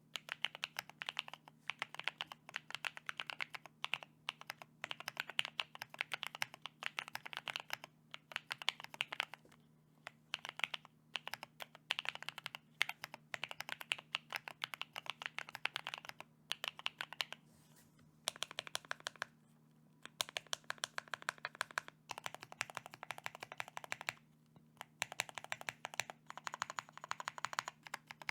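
Typing on a mechanical keyboard fitted with NicePBT Noel PBT keycaps: fast runs of keystrokes in bursts of a second or two, broken by short pauses.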